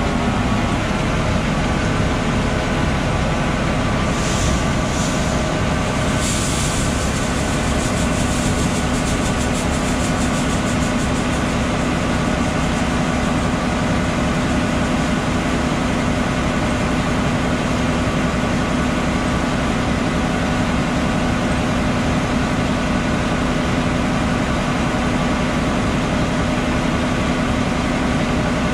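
John Deere 9520RX tracked tractor running steadily under way, a continuous engine drone with a steady low hum.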